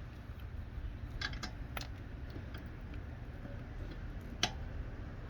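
A few light clicks and taps as the impact wrench's socket is set onto the next lug nut, over a low steady rumble.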